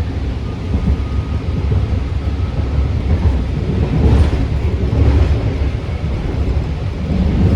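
BART Fleet of the Future train car running at speed, heard from inside: a steady low rumble of wheels on the rails, with swells about four and five seconds in and near the end.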